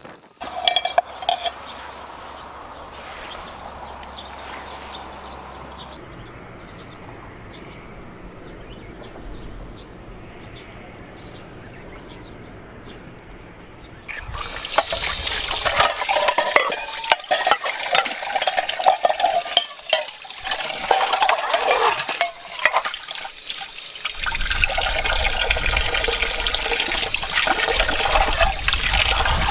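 A quiet steady hiss, then from about halfway a water tap running into a concrete sink while aluminium camping pots are rinsed and scrubbed by hand, with splashing and clinks of metal. The running water gets louder near the end.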